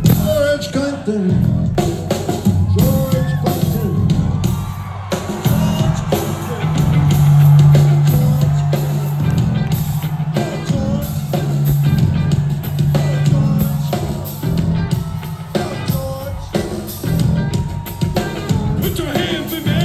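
Rock band playing live through a concert PA: bass guitar, drum kit and electric guitar, with a man singing over them. A low bass note is held for a couple of seconds near the middle.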